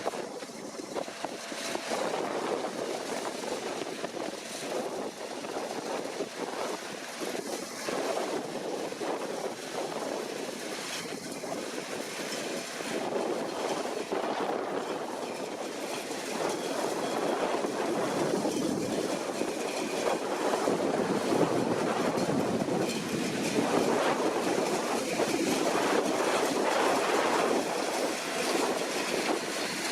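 Deutz-Fahr C9306TS combine harvester running as it harvests: a steady mechanical noise that grows louder about halfway through.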